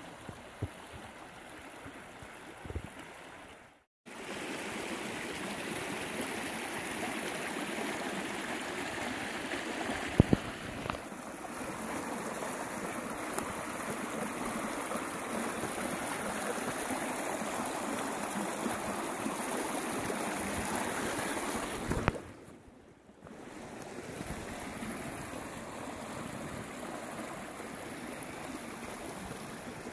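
Fast-flowing creek running over rocks and small ledges: a steady wash of rushing water. It breaks off abruptly twice for a moment, and a few brief knocks sound about ten seconds in.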